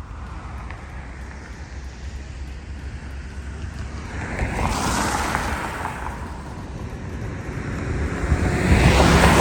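Street traffic: two vehicles pass by one after the other, each a swell of tyre and engine noise that rises and fades, the second louder, over a steady low outdoor rumble.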